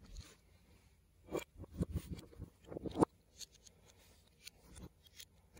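LEGO plastic pieces handled and pressed together: a quick run of sharp clicks and knocks, the loudest about three seconds in, then a few lighter clicks.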